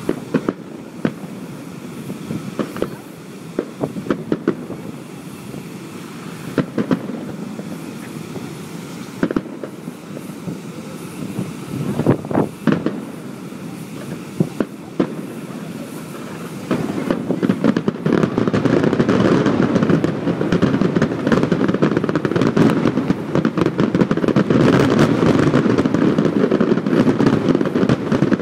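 Aerial fireworks going off: single booms and crackles every second or two, then about two-thirds of the way through a sudden, louder, dense barrage of rapid bursts and crackling, typical of a show's finale.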